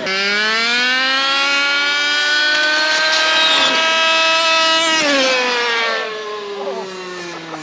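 Brushless electric R/C car's motor and drivetrain whine, rising in pitch as it accelerates hard, holding at speed, then falling away steadily from about five seconds in as it slows.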